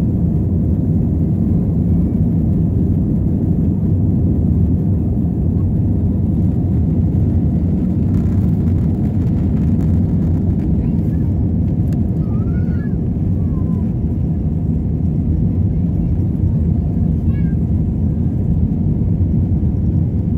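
Steady low rumble of an airliner's jet engines and rushing air, heard inside the passenger cabin as the plane climbs after takeoff.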